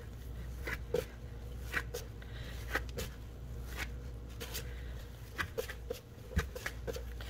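Gloved hands kneading a ball of seitan dough on a floured wooden board: soft dull knocks and rustles, roughly one stroke a second.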